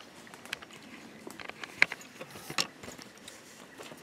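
Irregular light clicks and rustles of movement while someone carries a handheld camera around a hammock tarp, over a low background hiss.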